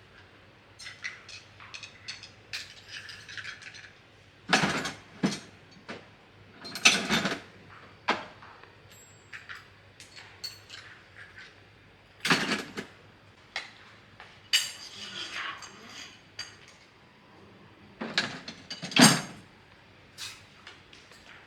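Metal tools and parts clinking and knocking as they are handled, in irregular clatters with a few louder knocks.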